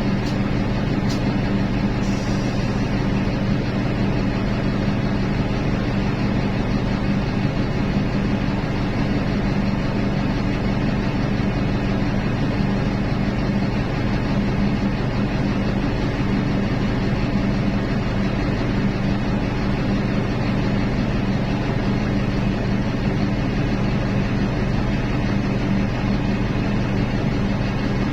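Large diesel engines of heavy mining machinery running steadily, a constant low drone with no change in pitch.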